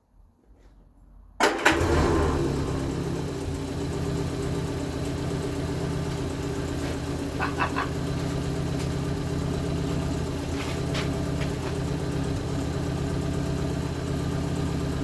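1975 Vauxhall Viva HC's engine starting about a second and a half in, then settling into a steady idle.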